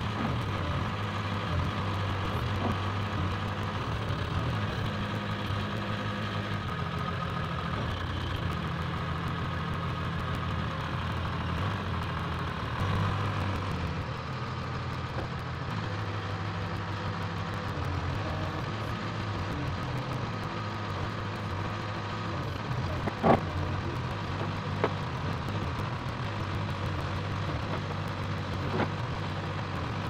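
Dynahoe 160 backhoe's engine running steadily as the hydraulics work the boom and bucket, its note shifting every few seconds under the changing load. A sharp knock comes about two-thirds of the way through, and two lighter knocks follow later.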